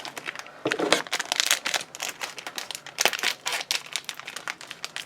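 Small plastic packaging crinkling in irregular bursts as it is handled and opened by hand.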